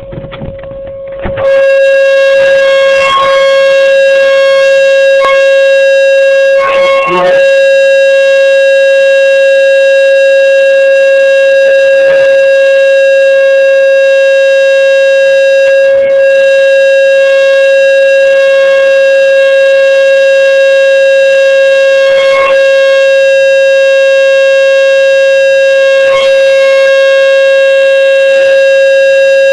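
T-128 tornado siren sounding a steady, unwavering tone during a routine test. It is loud at close range and jumps to full loudness about a second and a half in.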